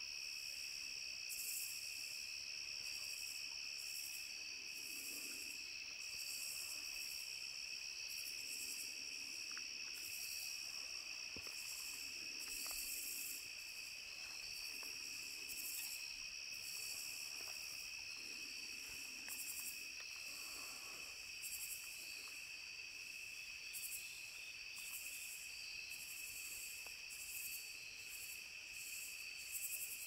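Night insect chorus: crickets trilling steadily, with another insect call pulsing above it roughly once or twice a second.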